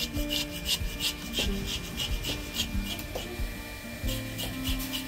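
Knife blade scaling a whole fish, rapid rasping scrape strokes at about three a second as the scales are rubbed off against the grain.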